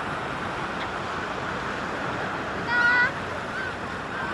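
Sea surf washing steadily on the shore. About three seconds in comes a short, loud, high-pitched cry.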